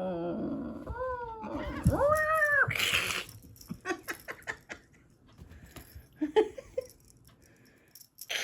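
Domestic cat yowling in drawn-out calls that rise and fall in pitch, three in a row with the last the longest and loudest, then a short hissing burst: the sounds of a cat squabbling with a sibling. Scattered light taps and clicks follow.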